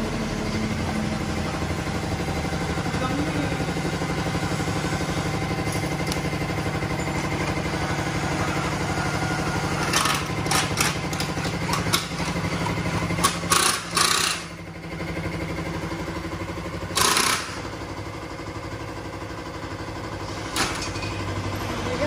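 Steady motor hum, like an engine running, with several short bursts of harsh noise between about ten and fourteen seconds in, another at about seventeen seconds and a short one near the end.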